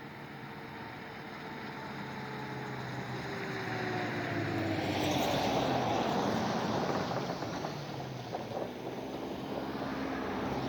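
An engine passing by: its drone grows louder to a peak about six seconds in, then eases off while its pitch slowly falls.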